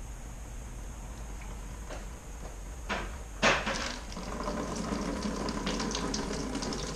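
Water surging through a hose into a PVC-and-clear-tubing transmission-cooler mock-up. It starts suddenly about three and a half seconds in, just after a short knock, then runs steadily with crackling and splattering as water leaks from the tube joints while the cooler fills.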